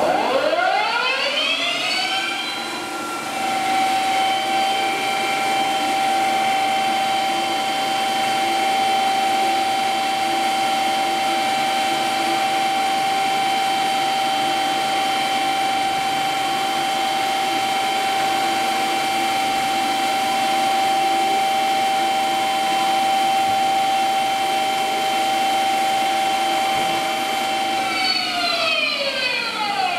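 Haas TL-4 CNC lathe spindle spinning up in high gear toward 300 rpm with a rising whine over about three seconds. It runs steadily for most of the time, then winds down with a falling whine near the end.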